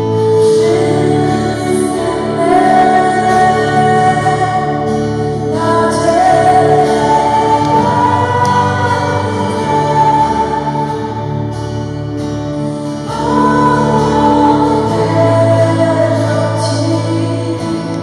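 Live Christian worship song: a woman sings a slow melody into a microphone, accompanied by an electric stage keyboard and a strummed small guitar.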